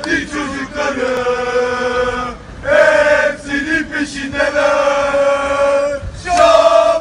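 Group of male football supporters chanting a terrace song in unison, in long held notes, with short breaths between phrases twice.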